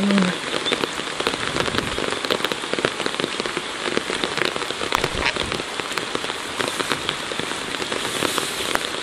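Steady rain falling, a dense, even run of small drop hits.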